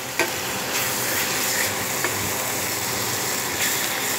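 Potatoes and spice paste sizzling steadily in hot oil in a metal pan, with a couple of spatula clicks against the pan. The masala is fried down until the oil has separated.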